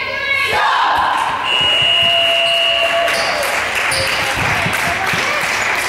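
Players' voices talking and calling over each other in an echoing sports hall, with a steady high tone lasting about a second and a half near the middle, and faint basketball bounces.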